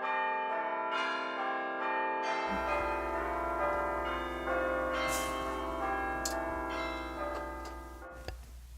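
Bells ringing: many overlapping bell tones come in one after another and ring together, stopping suddenly about eight seconds in.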